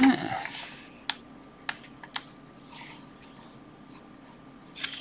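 A page of an old 1958 book being turned: a loud rustle and swish of paper at the start. It is followed by three light clicks and a soft paper rustle, and another rustle begins near the end.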